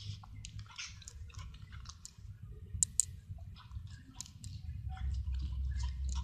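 Dog digging in soil: scattered scratching and clicking, with two sharp clicks about three seconds in, over a steady low rumble that grows louder near the end.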